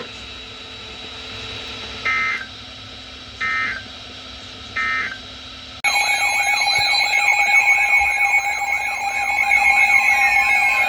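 Emergency Alert System broadcast signal: three short bursts of digital header data, then, about six seconds in, a loud warbling attention alarm starts abruptly. This marks the start of a new weather warning on NOAA Weather Radio.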